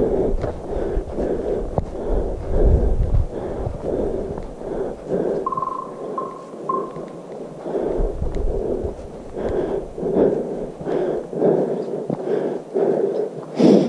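A hiker walking at a steady pace, breathing and footsteps close to the microphone in a regular rhythm of about two a second, with gusts of wind rumbling on the microphone now and then. Three short high beeps sound about six seconds in, and a sharp click comes near the end.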